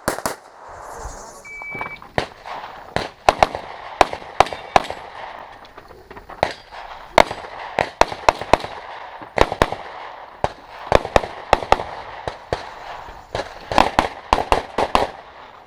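Handgun shots fired rapidly in pairs and short strings with brief pauses between them, as in a practical shooting stage. A short electronic beep sounds about a second and a half in.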